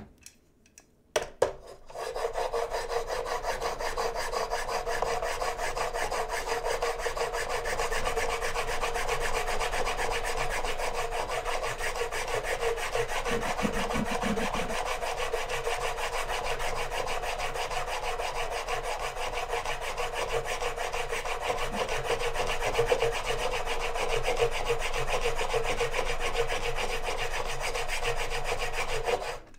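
A steel plane blade in a roller honing guide is rubbed rapidly back and forth on a coarse diamond sharpening plate, grinding the bevel flat to take out the slight hollow left by a Tormek wheel. It opens with a couple of sharp clicks, then a steady gritty scraping that stops just before the end.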